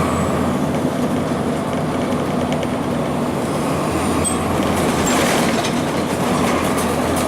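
Cabin sound of a 2002 Blue Bird CS transit bus: its Cummins ISC diesel engine running steadily, with the body and fittings rattling.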